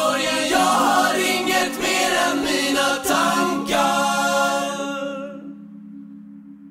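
Closing bars of a Swedish pop song: layered voices sing over a held low note. About five seconds in the voices stop, leaving the low note to fade away.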